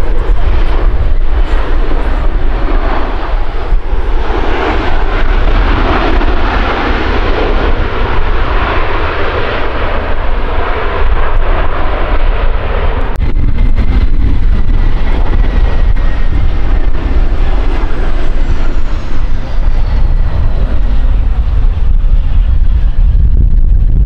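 Jet engines of a landing Boeing 737-800 (CFM56 turbofans), loudest during the rollout after touchdown, over constant heavy wind rumble on the microphone. An abrupt cut about 13 s in leaves a quieter jet whine from a landing Boeing 717, with a faint falling tone.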